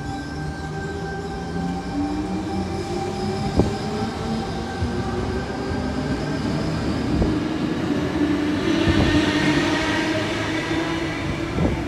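Sydney Trains double-deck electric train pulling away from the platform, its motors whining and rising in pitch as it gathers speed, growing louder about two-thirds of the way through. A few sharp clicks come from the wheels over the rail joints.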